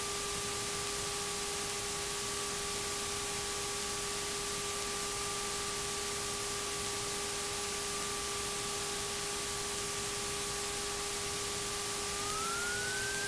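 Steady hiss and electrical tones on the PA-28's cockpit intercom audio feed, with no engine sound heard directly. A whine holds one pitch, then rises near the end.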